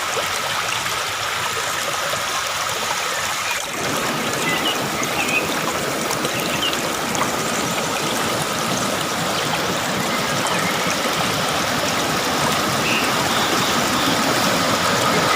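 Water rushing at a waterfall: a steady noise that turns fuller and deeper about four seconds in, with a thin steady high tone underneath.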